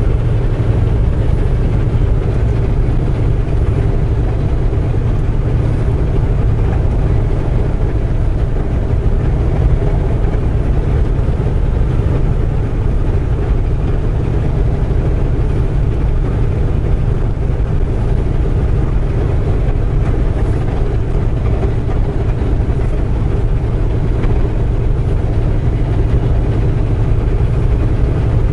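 Semi truck's diesel engine and road noise heard inside the cab, a steady low drone while cruising on the highway.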